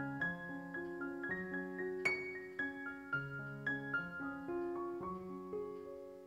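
Quiet background piano music: a gentle melody of single struck notes, a few a second, over held lower notes.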